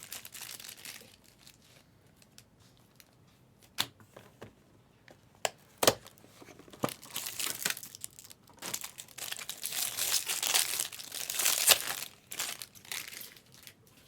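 Plastic wrapping on a Bowman Chrome HTA baseball card box and its packs being crinkled and torn open. A few sharp snaps come first, then a long stretch of rustling and tearing.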